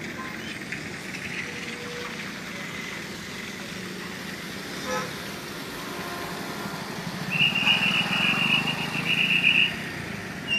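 Road traffic moving past on a highway, steady at first; in the last few seconds a vehicle passes close, louder, with a high buzzing tone for about two seconds.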